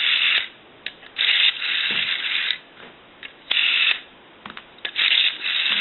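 Rotary dial of a Wedgewood desk telephone being pulled round and let go four times, each with a short ratcheting whir. The dial is sluggish and stops before it fully returns, catching in the same area each time, a dial mechanism in need of repair.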